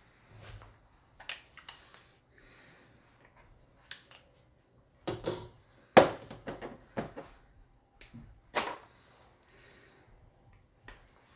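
Hands working at a hot sauce bottle, picking and peeling the plastic seal off its cap: a scatter of small clicks, taps and crinkles, with the loudest sharp knock about six seconds in.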